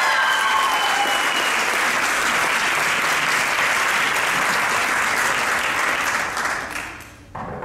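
Audience clapping, a dense steady applause that dies away near the end. A few high held notes of a cheer or voice trail off in the first second or so.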